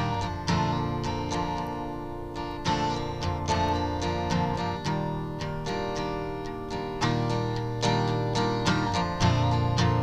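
Background music: an acoustic guitar picking chords in a steady, even rhythm.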